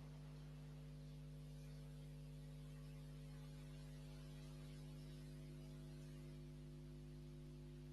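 Near silence with a faint, steady electrical hum and its overtones over a light hiss.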